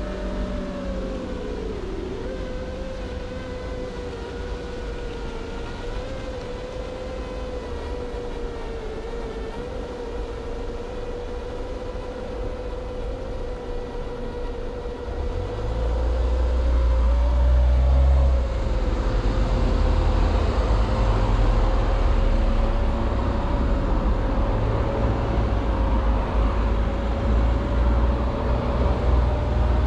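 Nazgul Evoque 5-inch FPV quadcopter on Foxeer Donut toroidal props, motors and props giving a steady, fairly low-pitched whine that wavers slightly with throttle. Halfway through, a loud low rumble joins and the overall sound gets louder.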